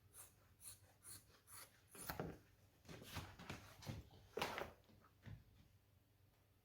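Faint, irregular rustling and scraping: a few soft strokes about half a second apart, then a denser cluster in the middle, then quiet.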